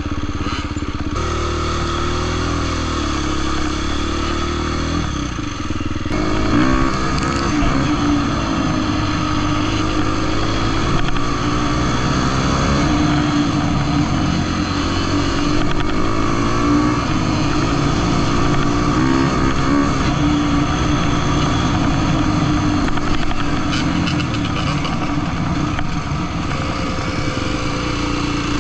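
Dirt bike engine running under way, at fairly steady low revs for the first few seconds, then revving up about six seconds in and rising and falling with throttle and gear changes.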